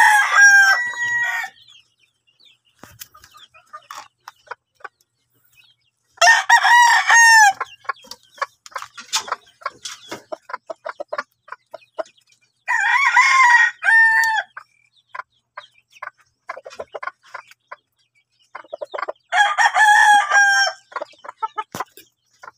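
Roosters crowing four times, each crow about a second and a half long, roughly six seconds apart. Between the crows come soft quick ticks of a gamecock pecking grain from a feed cup.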